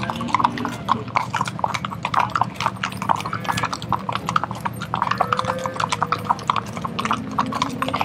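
Hooves of several horses walking on a paved road: an uneven, continuous clip-clop of many overlapping hoofbeats.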